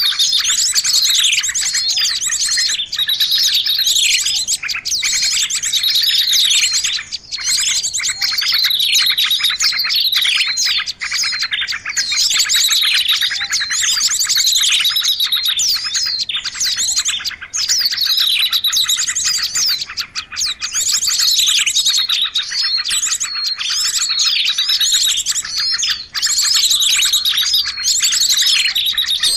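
Bird-trapping lure recording of many small songbirds calling at once, layered together: a dense, continuous mix of rapid high trills and chirps with repeated falling whistled notes.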